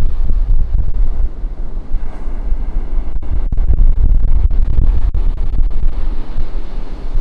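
Ocean surf washing on a beach, nearly buried under heavy wind buffeting on the camera's built-in microphone, a deep rumble that swells and dips constantly.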